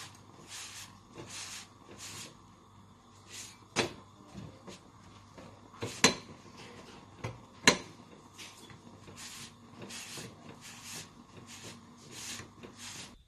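A folded cloth rubbing and pressing a thin taco flatbread on a hot flat metal pan: repeated swishing strokes, about two or three a second. Three sharp knocks, the loudest sounds, come about four, six and nearly eight seconds in.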